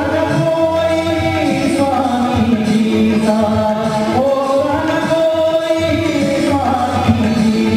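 Devotional singing: a voice holding long notes that glide up and down, over a steady low drone accompaniment.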